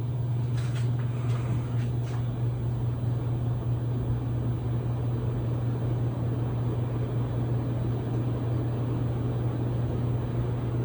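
52-inch Halsey Builder ceiling fan running on high speed: a steady low motor hum with the rush of moving air. It is wobbling badly on high, which the owner puts partly down to loose blade set screws.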